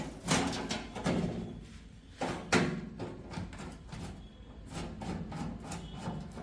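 Scattered clicks, knocks and scraping as a screwdriver takes the screws out of a microwave oven's outer cover and the casing is handled; the sharpest knocks come a little after two seconds in.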